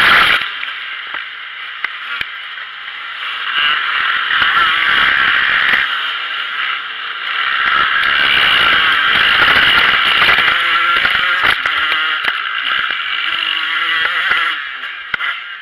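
Motocross bike engines buzzing at race speed, heard muffled from a camera mounted on the bike, with the pitch and loudness rising and falling as the rider works the throttle. Occasional knocks from the bike over the rough track.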